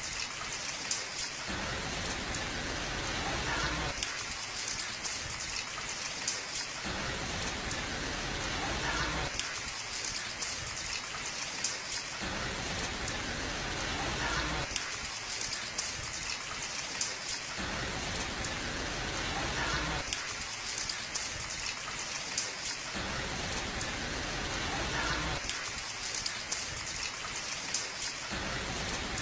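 Steady rain falling on hard, wet ground, an even hiss of drops, with a low rumble that comes and goes about every three seconds.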